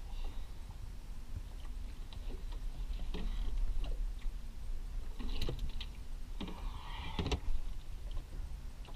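Handling noises at a plastic cooler: the lid opening and a trout going in on ice, heard as a few separate knocks and clatters in the second half, the last one the loudest, over a steady low rumble.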